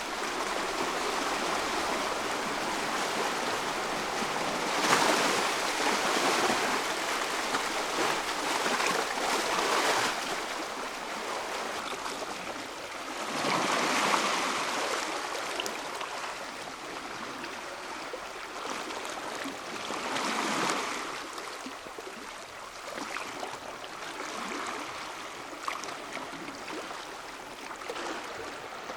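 Black Sea waves washing onto the shore, a steady hiss of water with a louder surge every four to six seconds, the biggest about five seconds in, growing calmer in the last third.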